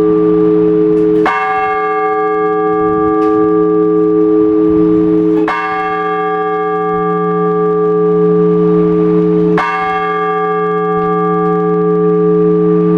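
Orthodox church bell tolled slowly, rung to call people to the all-night vigil. Three strokes about four seconds apart, each one ringing on with a long, deep hum that carries into the next.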